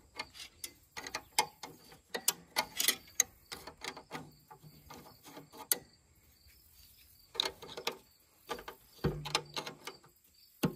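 A hand wrench clicking and clinking against the fuel-line fitting nut on a diesel tractor's fuel filter as it is fitted, turned and repositioned to loosen the line: an irregular run of light metallic clicks, with a pause in the middle.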